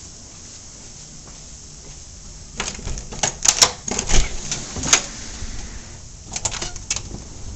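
A run of sharp clicks and knocks, like objects being handled, starting about two and a half seconds in, with a few more near the end.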